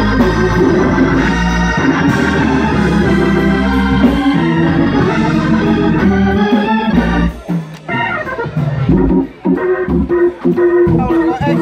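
Two-manual electronic church organ being played: full sustained chords over a low bass line, then after about seven seconds short stabbed chords broken by quick rising runs up the keyboard.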